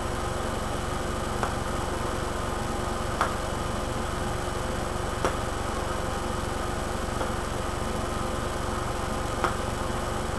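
A steady machine-like hum and hiss, with four short, faint clicks spaced irregularly through it.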